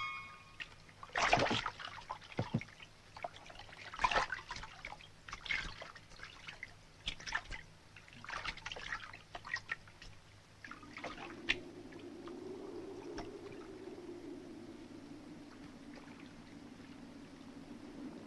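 Water splashing and dripping in irregular strokes, then, from about ten seconds in, a steady low rush of flowing water.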